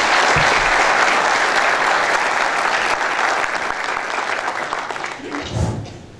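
A large audience applauding, steady at first and then dying away near the end.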